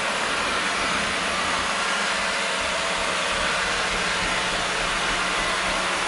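Eufy RoboVac robot vacuum running across a hardwood floor: a steady whirring hiss from its suction fan, with a faint low hum underneath.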